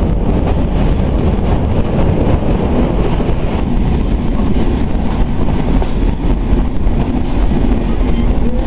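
Benapole Express passenger train running at speed, heard from the side of the carriage: a steady rumble of wheels on the rails, with wind buffeting the microphone.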